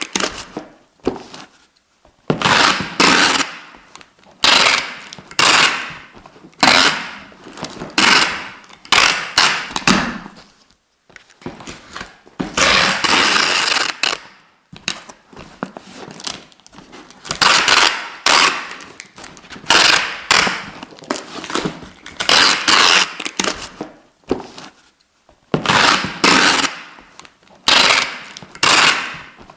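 Adhesive tape being pulled off the roll again and again: over a dozen short noisy pulls, each lasting about a second with brief pauses between, and one longer pull of about two seconds near the middle.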